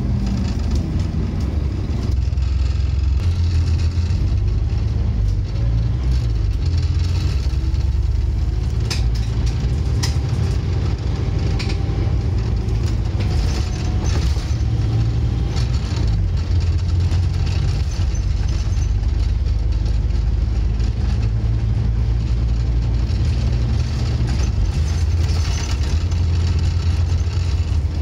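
Scania N230UD bus's five-cylinder diesel engine running under way, heard from inside the passenger saloon, its pitch falling and rising as the bus slows, pulls away and changes gear. A few short clicks and rattles come about nine to ten seconds in.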